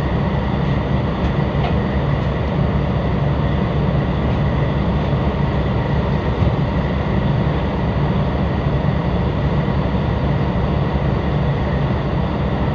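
A tugboat's diesel engines running steadily, a loud low drone without break, heard from on board.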